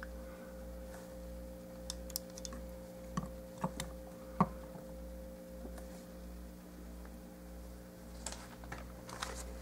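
Faint, scattered light clicks and taps of a plastic action figure being handled and set down on a tabletop, over a steady low electrical hum.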